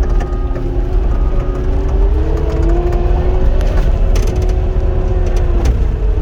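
Cat 259 skid steer's diesel engine working under load, heard from the operator's seat, its pitch rising about two seconds in and dropping sharply near the end. Short clanks and rattles from the machine come through over the engine.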